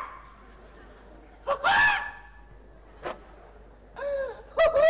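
A man's short vocal exclamations and laughs, in a few brief outbursts with quiet pauses between and pitch sliding up and down.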